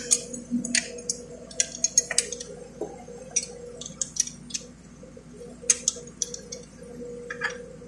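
Irregular light metallic clicks and taps from hands, tools and bolts at the mounting bracket while a new alternator is being fitted to an Isuzu 4HF1 engine, over a faint steady hum.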